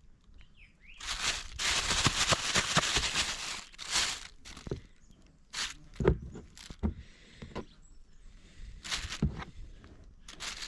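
Thin plastic bag rustling and crinkling in irregular bursts as pieces of fish fillet are pushed into it to be coated in flour, with a few soft knocks.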